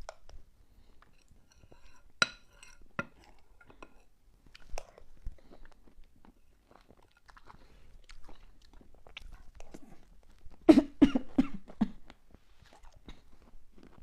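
Close-miked mouth sounds of eating whipped-cream cake: soft chewing and smacking with scattered sharp clicks, the loudest about two seconds in. A louder cluster of throaty mouth sounds comes about eleven seconds in.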